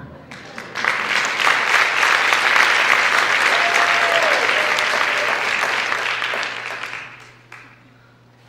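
Theatre audience applauding, the clapping swelling about a second in and dying away about seven seconds in.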